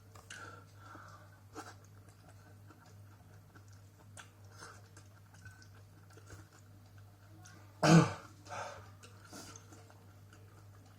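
A person chewing a burger quietly, with faint mouth clicks. About eight seconds in comes one sudden, loud, short sound from the throat, followed shortly by a softer one.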